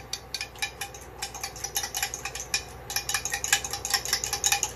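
A fork beating raw eggs in a bowl: quick, even clinks of the tines against the bowl, several a second, as the eggs are whisked.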